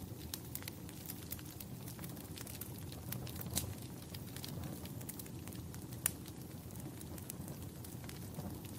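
Wood fire crackling: a steady low rush under scattered sharp pops and snaps, two of them louder, about three and a half and six seconds in.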